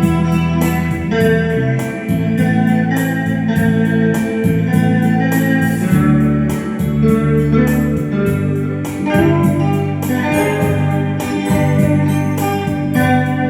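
Instrumental romantic music: held organ-like keyboard chords that change every second or two, with a melody above them over a steady beat.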